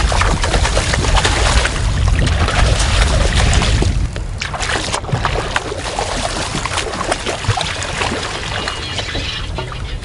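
Seawater splashing and sloshing against the side of a boat. A heavy low rumble runs under it for about the first four seconds.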